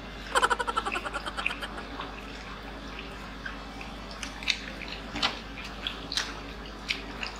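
Close-miked chewing and lip-smacking of fried chicken nuggets and a burger: scattered wet clicks and crisp crackles over a steady low hum, with a brief pitched sound in the first second or so.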